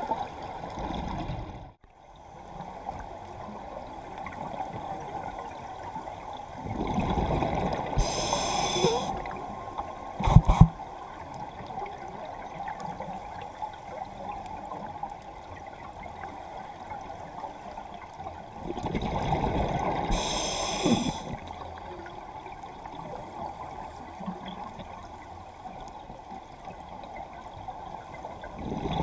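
Scuba diver breathing through a regulator underwater: two slow breaths about twelve seconds apart, each a rush of exhaled bubbles and regulator hiss, with a third starting at the very end, over a steady underwater hiss. A sharp double knock comes about ten and a half seconds in.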